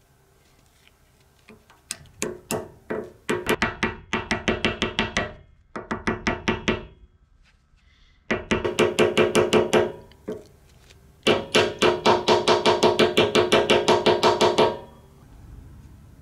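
A soft-faced mallet rapidly tapping a steel bearing ring into a Velosolex's aluminium front wheel hub, in runs of quick blows about five a second, with a pause near the middle. The hub rings briefly with each tap.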